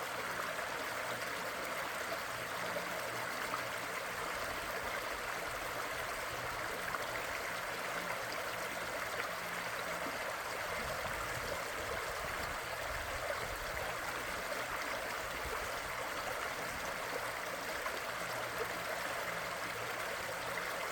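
Stream water flowing and gurgling steadily over rocks, a constant rushing with no breaks.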